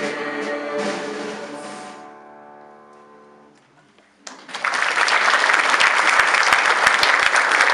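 A mixed choir sings the last words of a song, then its final chord fades away over a couple of seconds. After a brief hush, the audience breaks into applause a little past four seconds in, and the applause carries on.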